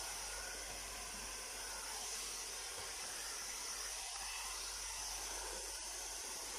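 Handheld hair dryer running, giving a steady hiss of blown air.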